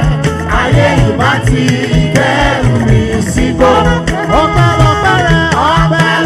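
Live gospel praise music: a sung vocal line over a band with drum kit and keyboards, keeping a steady beat.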